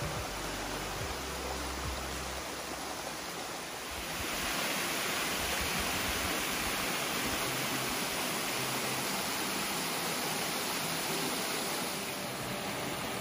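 Creek water rushing over rocks and small cascades in a steady hiss. It grows louder about four seconds in, close to a small waterfall, with a low rumble under the first couple of seconds.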